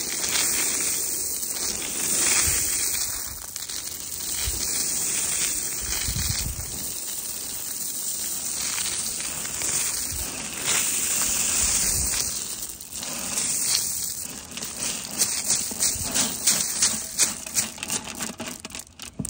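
Shelled corn poured out of a bucket onto dry leaves and pine straw: a long rushing patter of kernels, turning into a run of sharp ticks near the end, with rustling and crunching in the dry leaf litter.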